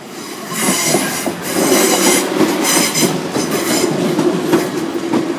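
A South West Trains Class 444 Siemens Desiro electric multiple unit passes at close range over the level crossing. A steady hum runs under repeated wheel clicks over the rail joints. It grows loud about half a second in and stays loud as the coaches go by.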